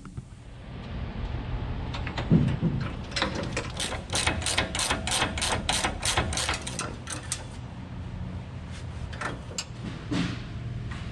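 Ratcheting wrench clicking on a bolt: a quick, even run of clicks, about five a second, lasting several seconds, over steady shop noise, with a knock about two seconds in.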